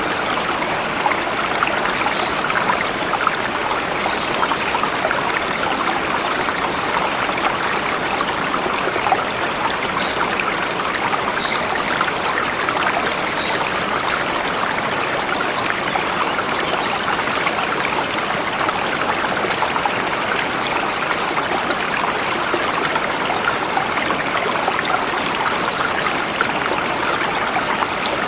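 A forest river flowing over rocks: steady rushing and trickling water with no change in level.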